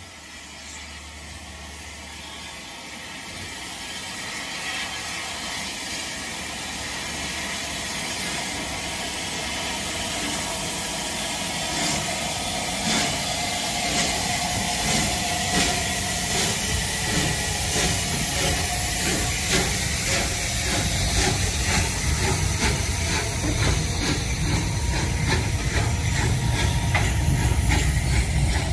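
Unrebuilt Bulleid Battle of Britain class pacific 34070 Manston starting away, with steam hissing from the open cylinder drain cocks and a quick run of regular exhaust beats. It grows steadily louder as the locomotive draws closer and passes, and ends in a deep rumble of wheels on rail.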